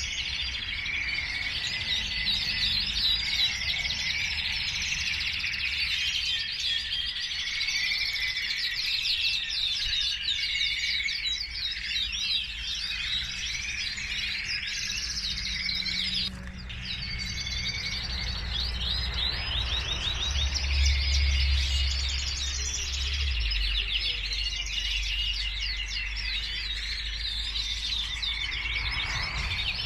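Many domestic canaries singing at once in their show cages, a continuous chorus of overlapping chirps and trills, with a low rumble underneath.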